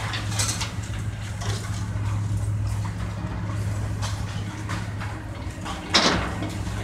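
Demolition excavators at work: a steady low diesel engine hum with scattered clanks and crunches of breaking building material, and one louder crash about six seconds in.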